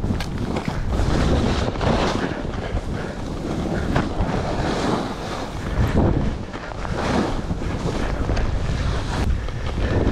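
Skis running through deep powder snow on a downhill run, with wind rushing over the GoPro's microphone; the rush swells and eases every second or two.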